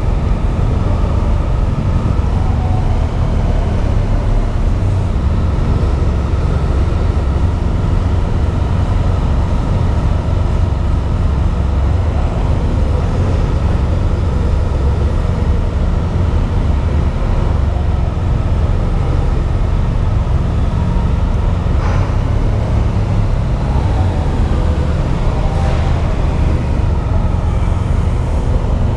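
Motorcycle engine running at low speed as the bike creeps forward, a steady deep rumble. Two short sharp knocks come late on, a few seconds apart.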